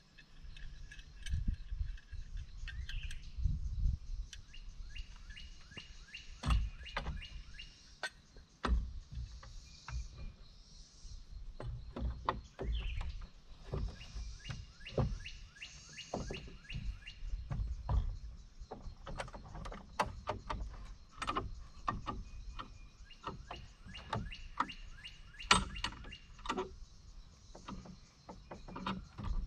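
Birds chirping on and off, over irregular knocks, clunks and low thumps from work on the wooden wall framing.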